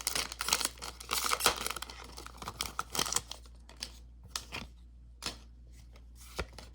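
Foil booster-pack wrapper crinkling and tearing as it is pulled open, dense for about three seconds, then a few light, separate clicks and taps.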